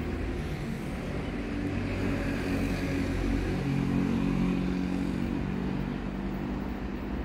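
Diesel engine of Taiwan Railway diesel-electric locomotive R165, heard approaching unseen through the tunnel ahead of its cement hopper train: a steady low engine drone with several tones, growing louder to about four seconds in.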